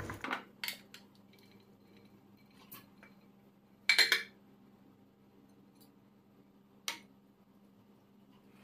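Scattered clinks and knocks of kitchenware: a metal pot knocking against a plastic bowl as soaked dog-food kibble is tipped into it, with a short rattling clatter about four seconds in and a single clink near seven seconds.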